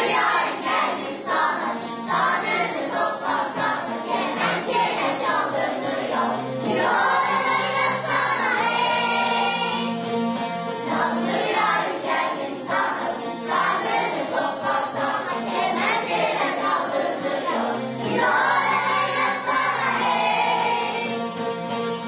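Children's choir singing a folk song, accompanied by bağlamas (long-necked Turkish saz) plucked to a steady beat.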